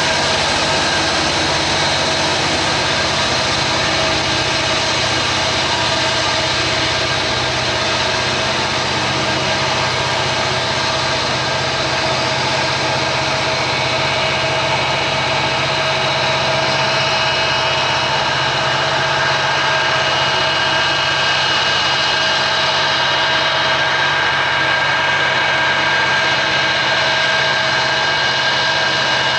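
Two EMD SD70ACU diesel-electric locomotives pushing hard at the rear of a heavy loaded coal train on an upgrade, their engines working at high throttle. The engines make a loud, steady drone, and a high whine strengthens past the halfway point.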